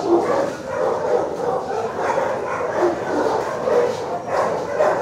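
Shelter dogs in their kennels barking and yipping, a continuous din of many overlapping calls with no pause.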